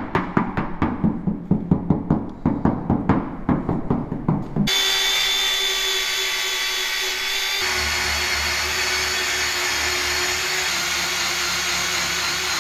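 A rhythmic beat of background music for the first four and a half seconds. Then a Milwaukee 3-inch cordless buffer starts suddenly and runs at a steady whine with its foam pad buffing compound into the paint to polish out scratches. About three seconds after starting, its sound deepens and takes on a low rumble.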